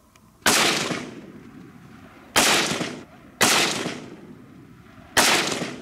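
AK-47 rifle (7.62×39 mm) fired in four single shots at uneven spacing. Each crack trails off over about a second as it echoes off the surrounding hills.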